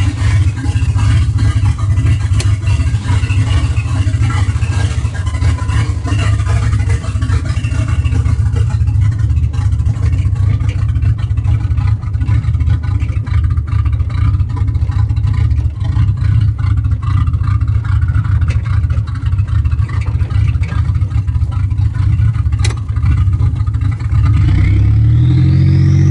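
Buick Grand National's V6 idling rough, a steady low engine rumble. Near the end the engine revs up, its pitch rising.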